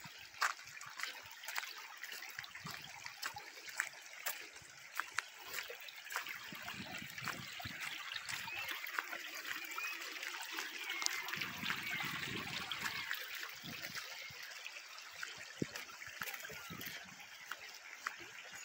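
Rainwater runoff trickling along a storm-damaged dirt road, a steady flow of water with scattered sharp clicks throughout the first half.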